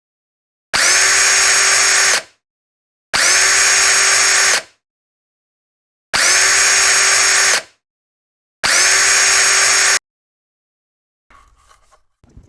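Cordless drill driving screws to hang the door's hinges, run four times in evenly held bursts of about a second and a half each, with a steady pitch, then faint handling sounds near the end.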